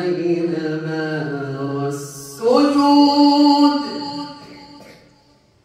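A man reciting the Quran in melodic tajweed style: a long held, drawn-out note that slides slightly lower, a brief break, then a new phrase about two and a half seconds in that dies away near the end.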